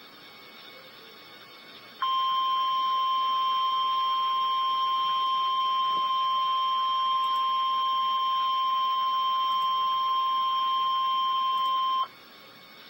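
Emergency Alert System attention tone: a single steady alert tone near 1 kHz that sounds for about ten seconds, starting and stopping abruptly over a faint hiss. It signals that a severe thunderstorm warning message follows.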